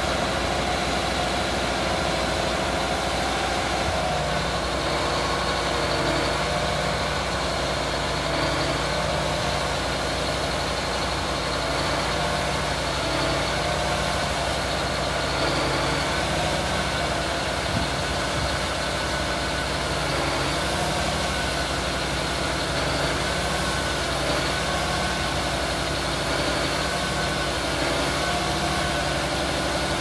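Steady engine-like hum of running machinery, with several held tones that shift in pitch every second or two.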